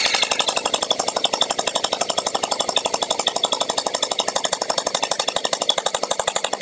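GELTACTICAL Lightning MRT gel ball blaster firing a long, unbroken full-auto burst: an even, rapid rattle of shots with no pauses.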